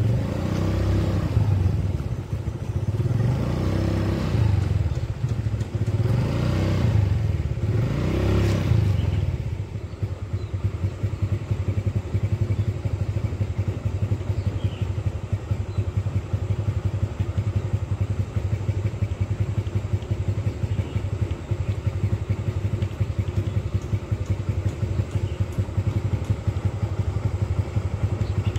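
Motorcycle engines rising and falling in pitch about three times in the first ten seconds, like bikes revving past, then a steady low engine rumble.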